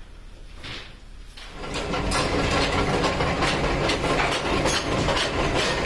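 Quiet room tone, then about a second and a half in, loud mechanical clattering and rattling of workshop machinery sets in and keeps going, thick with sharp metallic clicks.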